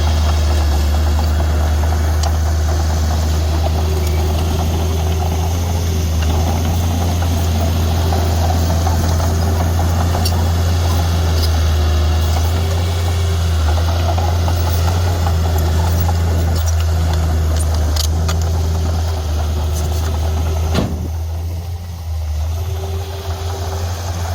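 Heavy diesel earthmoving engine running steadily with a deep, even drone. About 21 seconds in there is a sharp knock, and the engine drops off briefly before building back up.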